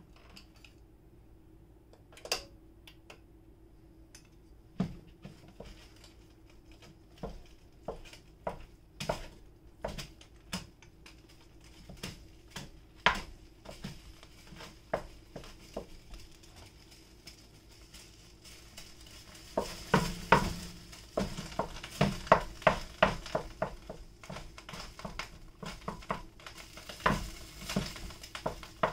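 Wooden spoon stirring ground meat browning in a large metal pot: irregular knocks and scrapes of the spoon against the pot, sparse at first and much busier about twenty seconds in, over a light sizzle of the frying meat.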